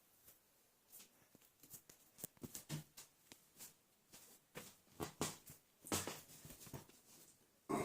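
Irregular light clicks, taps and rustles of cardboard being handled and worked by hand. They grow busier partway through, and a louder one comes right at the end.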